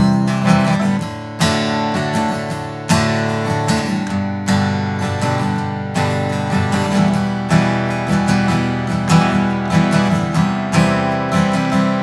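Acoustic guitar strumming a steady chord pattern, with no singing.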